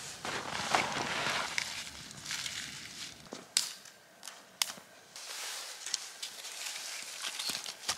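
Snow crunching in uneven bursts, with two sharp cracks near the middle.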